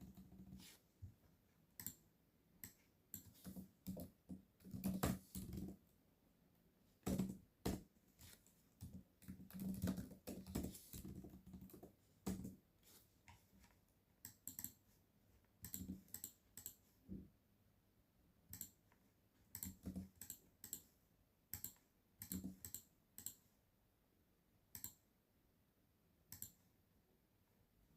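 Typing on a computer keyboard: irregular runs of quick keystrokes with short pauses between, busiest in the first half and thinning to scattered single keys later.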